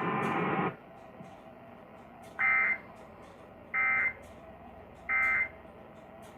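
Emergency Alert System end-of-message signal: three short, identical bursts of warbling digital data tones about a second apart, the coded sign that the alert broadcast is over. Before them, broadcast audio cuts off just under a second in.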